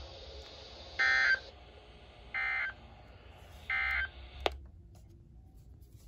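Three short warbling digital data bursts from a weather alert radio's speaker, a little over a second apart: the SAME end-of-message code that closes an NWS warning broadcast. A sharp click follows about a second after the last burst.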